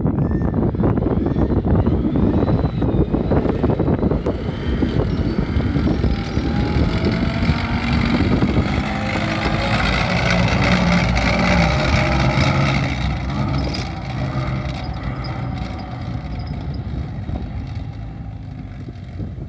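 FV434 armoured repair vehicle, a tracked vehicle on the FV432 chassis with a Rolls-Royce K60 multi-fuel engine, driving past: engine running and tracks clattering. It is loudest as it passes close, then fades steadily as it drives away.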